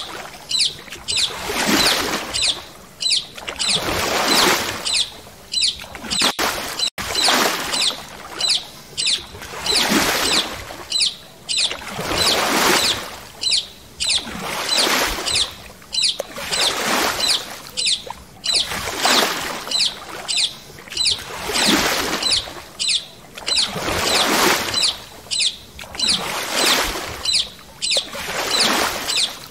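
Paddle strokes in water from a stand-up paddle board: a swishing splash that swells and fades about every two seconds, in a steady rhythm.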